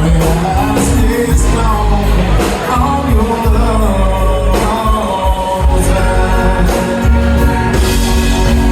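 A live band playing loud, steady music with a singer, over a driving bass and a regular drum beat.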